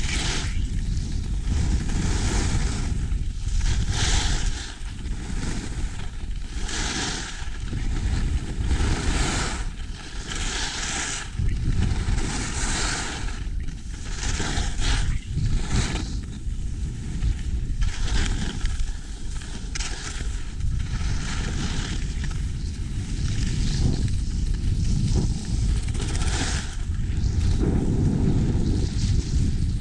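Wind rushing over an action camera's microphone during a ski descent, with skis scraping over groomed snow in bursts every second or two as the skier turns.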